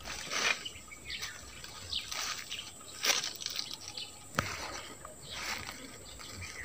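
Water from a plastic bottle trickling and dripping in short, irregular spurts onto hands and dry leaf litter.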